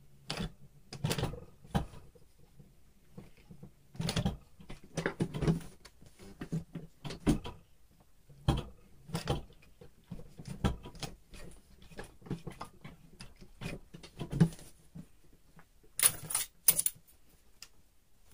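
Irregular light clicks, taps and knocks from handling fabric and small tools at a sewing machine, with a brief brighter rustle about two seconds before the end.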